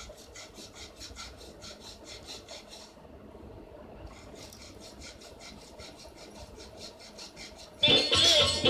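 Quiet, even rasping strokes at about six a second, pausing for about a second three seconds in. Loud music with a rattling percussion part breaks in near the end.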